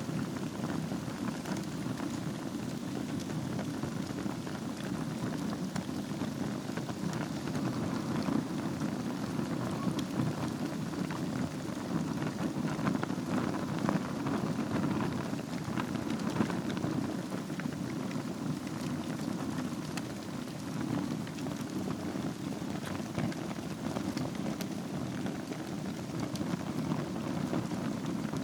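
Wood fire with glowing embers burning in a fireplace: a steady rushing hiss with many small crackles and pops scattered through it.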